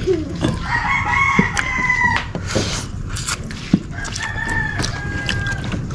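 Rooster crowing twice, each crow a long held call of a second or more. A few light clicks come between the crows.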